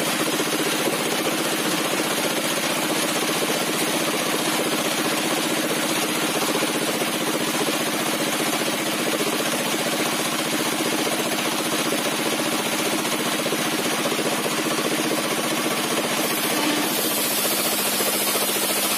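Engine-driven sawmill saw with a 60 cm zigzag-toothed blade running steadily, a continuous mechanical drone with a hiss, as a timber beam is fed along the saw bench. The high hiss grows a little about sixteen seconds in.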